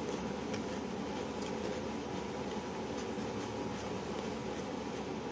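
Steady room noise, a low hum with hiss, with a few faint light ticks.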